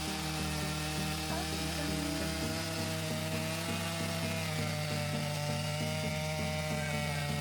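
Stihl MS 881 chainsaw running steadily at full throttle as it rips lengthwise through a spalted beech log on a chainsaw mill.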